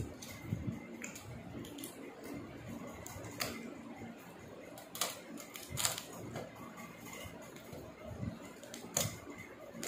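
Cooked crab shell cracking and crunching as it is bitten and chewed, in a handful of sharp irregular cracks, loudest about six seconds in and near the end, with softer chewing between.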